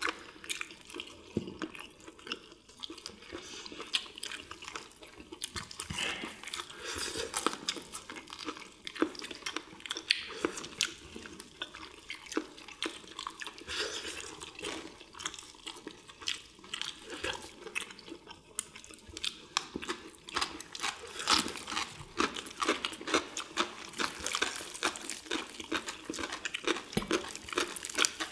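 People eating deep-fried chicken and battered squid: crunching and chewing that makes a dense run of small crackles and clicks, getting busier near the end.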